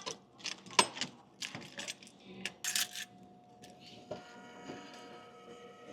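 Sharp metallic clicks and clinks as a vending machine is opened and handled, then from about three seconds in a steady machine hum with several fixed tones.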